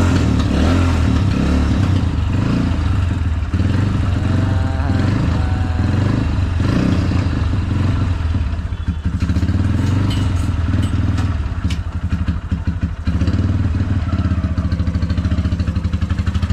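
Motorcycle engine running just after being kick-started, a steady low beat that turns choppy for a few seconds in the middle as the bike is backed out and ridden off.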